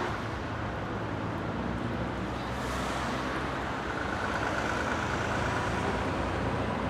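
Steady outdoor road vehicle noise: traffic passing on the roadway with engines running. A faint high whine comes in for a couple of seconds around the middle.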